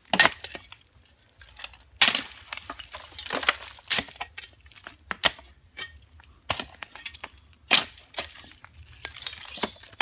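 Debris being cleared and tossed about: a string of irregular sharp knocks and clinks, one or two a second.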